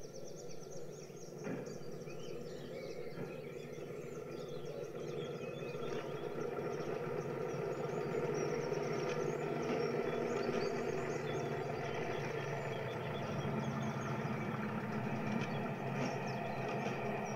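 Added recorded railway sound of a locomotive running, a steady engine note that grows louder from about six seconds in.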